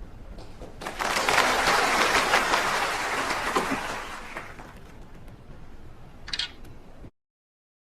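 Audience applauding: the clapping starts suddenly about a second in, is loudest for a couple of seconds, then dies away. The sound cuts off abruptly to silence near the end.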